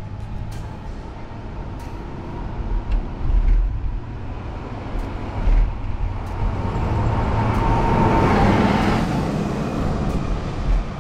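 Motor traffic with low wind buffeting on the microphone. A vehicle passes close by, swelling to its loudest about eight to nine seconds in and then fading.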